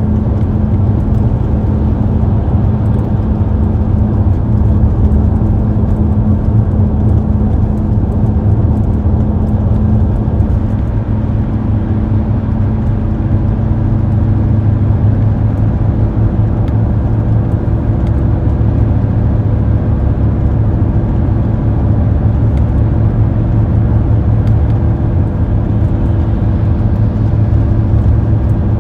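Steady car road noise and engine hum while driving at a constant speed, a low, even rumble with no changes.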